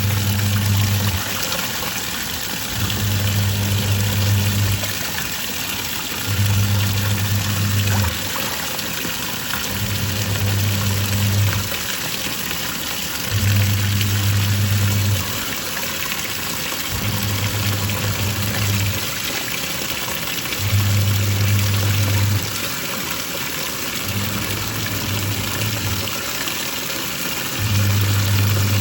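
Twin-tub washing machine's wash tub running: the motor hums in runs of about two seconds with short pauses between, as the pulsator reverses back and forth, over a steady slosh of water.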